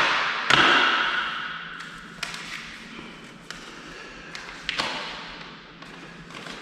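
Door handset hardware being unpacked from its box: packaging rustles about half a second in, followed by a few sharp clicks and knocks of small parts being handled and set down.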